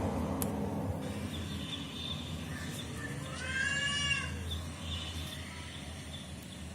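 A cat meowing: one drawn-out meow, rising then falling in pitch, about three and a half seconds in, with a few fainter short cat calls around it over a steady low hum.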